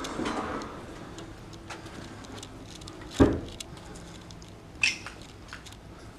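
Footsteps crunching and scuffing over debris on a littered tile floor: scattered small clicks and crackles, a heavier thump about three seconds in and a sharp, ringing clink near five seconds.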